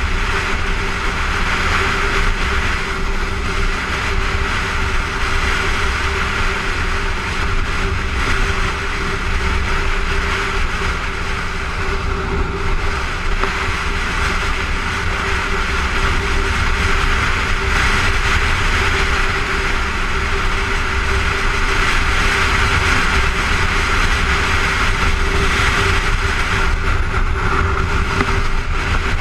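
Honda motorcycle riding at freeway speed: wind rushing over the microphone with the engine's steady hum and low rumble underneath.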